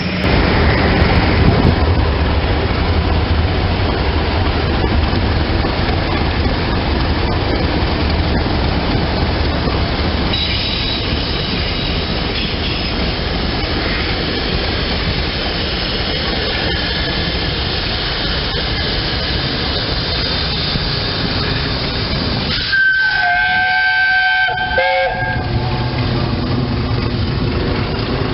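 Class 31 diesel locomotive running and rumbling along the track as it hauls a train, with wheel and rail noise. About 23 seconds in, a high horn sounds for around two seconds.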